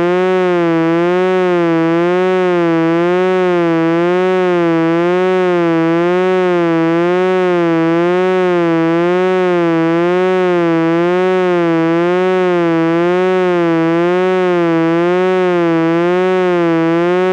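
Continuous electronic buzzing tone, its pitch wavering evenly up and down about one and a half times a second, like a slow siren, at a steady loudness.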